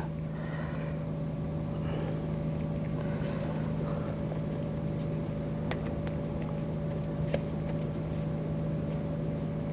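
Steady low machine hum with a few faint clicks of small parts being handled.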